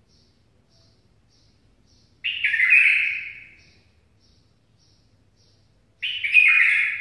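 Bulbul song: two short, loud warbled phrases, one about two seconds in and one near the end, each lasting about a second and a half. Faint high chirps repeat about twice a second between them. The phrases belong to a 'Mandali'-style song used as a tutor song for teaching young bulbuls.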